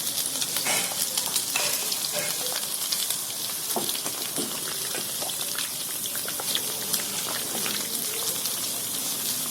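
Milk-and-semolina mixture sizzling as it hits hot oil and browned sugar in a kadhai, with a steady hiss and small scrapes of a spoon stirring it.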